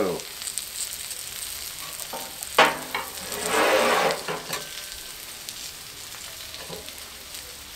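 Potatoes frying in melted butter on a Blackstone flat-top griddle: a steady sizzle, with a sharp knock about two and a half seconds in and a louder burst of noise lasting about a second just after.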